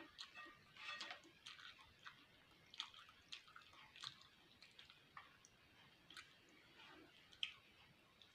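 Faint, wet chewing and lip-smacking: a person eating beef fat, with irregular small clicks and squishes of the mouth.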